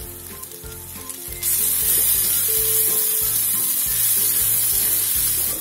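Bitter gourd pieces frying in coconut oil in an iron kadai: a quieter start, then a loud, steady sizzle that comes in suddenly about a second and a half in, as fresh oil reaches the hot pan, with the pieces being stirred.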